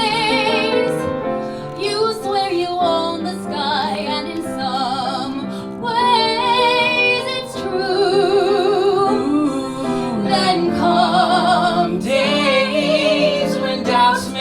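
A woman singing a musical-theatre song in long held notes with wide vibrato over a steady instrumental accompaniment.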